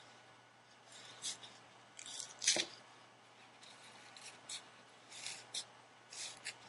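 Nike Diamond Elite Pro batting gloves being pulled on and handled: a series of short rustles and scrapes of the glove material, the loudest about two and a half seconds in.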